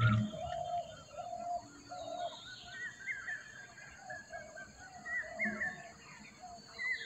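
Several wild birds calling at once: a short, repeated lower call alongside higher, warbling chirps. A brief low thump comes right at the start.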